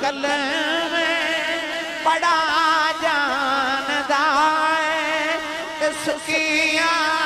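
A man singing a devotional Punjabi refrain in long, drawn-out notes with heavy wavering ornaments, in a chant-like style.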